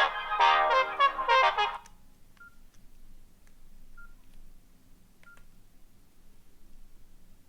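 A loud melody breaks off about two seconds in. It is followed by three short single-pitch beeps with soft clicks, a second or more apart: the Nokia N80's keypad tones as its keys are pressed.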